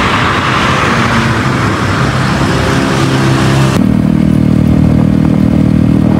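Motorcycle accelerating with loud rushing wind noise, its engine note rising. After an abrupt cut about four seconds in, a motorcycle engine runs at a steady speed with an even, pulsing drone.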